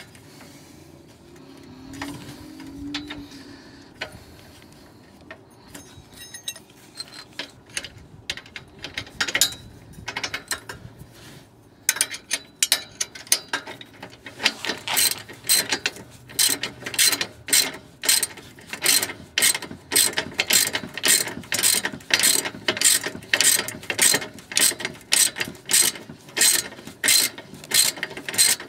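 Ratcheting wrench clicking as exhaust flange bolts are tightened down: scattered faint clicks at first, then from about halfway in a steady run of ratchet strokes, about two a second.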